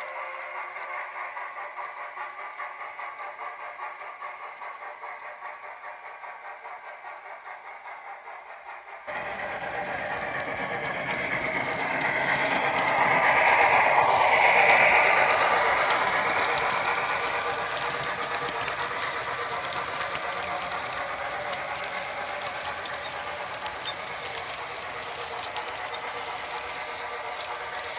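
HO-scale model of the CN 6060 steam locomotive running, its ESU sound decoder playing steam locomotive sound over the rattle of the model on its track. About nine seconds in the sound changes abruptly and becomes fuller, then it swells and fades as the model passes close by, loudest a few seconds later.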